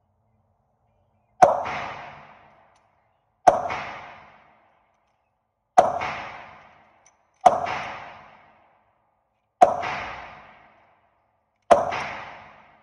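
Six pistol shots from a Polymer80-built Glock-style handgun, fired slowly about two seconds apart, each sharp crack followed by a ringing decay of about a second in the indoor range.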